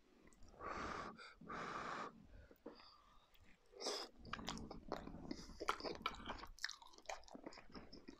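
A person eating curry from a spoon: two long breathy puffs as the spoonful comes up, then close chewing with many small wet clicks, and the spoon going back into the metal dish.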